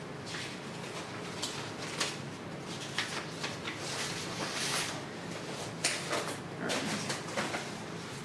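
Scattered clicks, taps and short rustles of paper and drawing supplies being handled on a wooden table, with a faint steady hum underneath.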